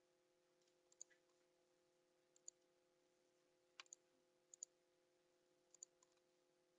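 Computer mouse clicking: about five faint, short clicks spread over several seconds, several of them in quick pairs, over a faint steady hum.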